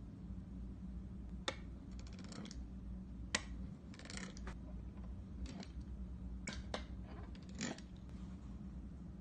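Green plastic wavy-edged Play-Doh cutter pressed down through a flat disc of play dough onto a wooden tabletop: irregular sharp clicks and short scraping taps, the two sharpest about a second and a half and three and a half seconds in, over a steady low hum.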